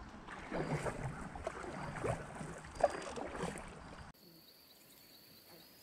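Canoe paddle strokes, the paddles dipping and splashing in the river in a run of short splashes. About four seconds in it cuts off abruptly to a quiet stretch with only a faint steady high-pitched hum.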